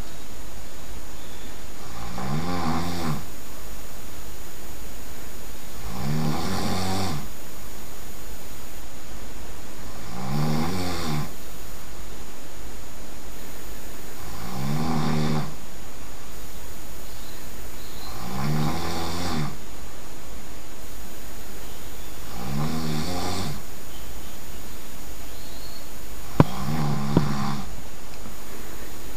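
A sleeping person snoring loudly, one snore about every four seconds, seven in all. Two sharp clicks come close together near the end.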